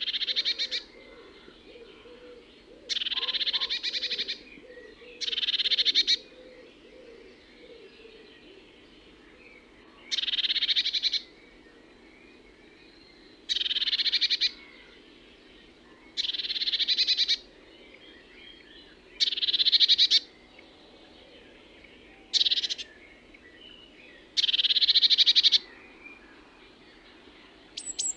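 Eurasian blue tit singing: about nine short, high-pitched trilled phrases, each about a second long, repeated a few seconds apart.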